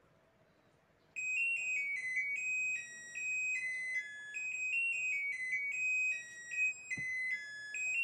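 Sanken washing machine's end-of-cycle chime: an electronic beeping tune of short notes stepping between several pitches, starting about a second in and playing on.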